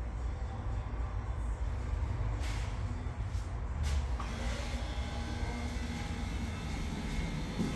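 A steady low rumble with a few faint steady hum tones above it, like machinery running or distant traffic.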